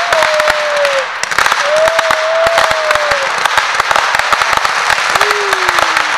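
A row of ground fountain fireworks spraying sparks, crackling densely over a steady hiss. A thin wavering tone comes and goes three times over the crackle, lower and falling near the end.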